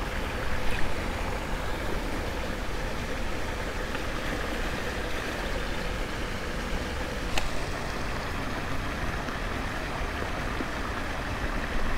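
Steady rushing outdoor noise, with one faint click about seven seconds in.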